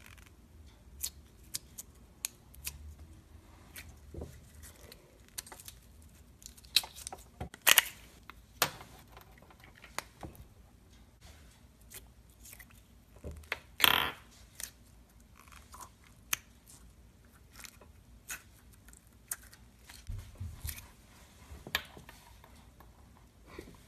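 Clear jelly putty squeezed and pressed between fingers, making scattered sticky clicks and small pops, with two louder pops about a third of the way in and just past halfway.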